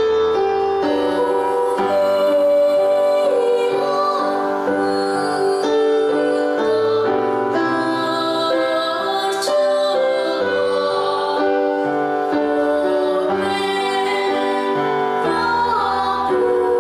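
A girl singing solo over recorded instrumental accompaniment, holding long notes, some with a slight waver.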